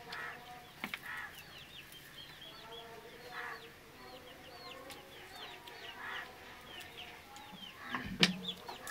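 Chickens clucking every so often, with short high bird chirps repeating throughout. A sharp knock comes near the end and is the loudest sound.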